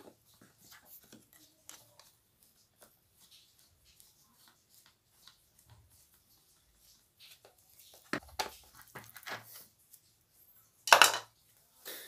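A screwdriver driving screws into the plastic housing of a washing machine gearbox: faint small clicks and ticks. It ends in louder clattering of hard plastic parts being handled, with the loudest knock about eleven seconds in.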